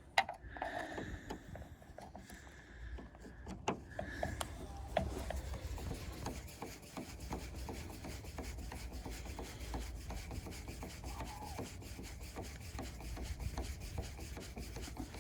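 Torx T20 driver turning the small door-handle retaining screw in the edge of a Ford Mondeo mk4 door: metal-on-metal scraping, sparse at first, then a steady run of fine rasping ticks from about five seconds in.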